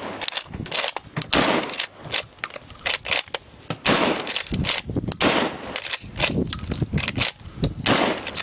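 Adler A110 12-gauge underlever shotgun fired in quick succession, about one shot a second. The lever clacks as it is worked between shots.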